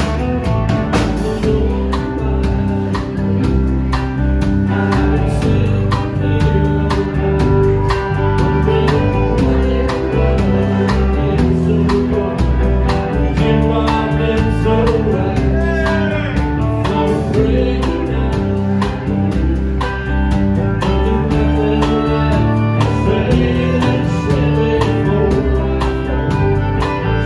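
Live country band playing: fiddle, acoustic and electric guitars, bass guitar and drum kit, amplified.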